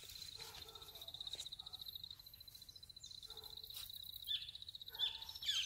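Insects trill steadily in a fast high pulse, with faint distant dog barks every second or so. A few short bird chirps come in near the end.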